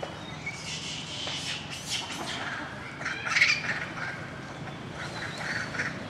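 A run of short, shrill animal calls, the loudest about three and a half seconds in.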